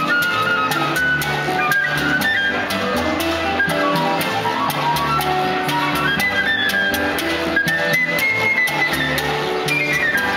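Music played by instruments: a moving melody line over a steady, regular percussion beat.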